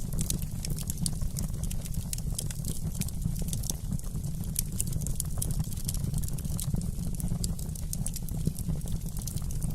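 Wood fire crackling, with many small irregular pops and snaps over a steady low rumble of the flames.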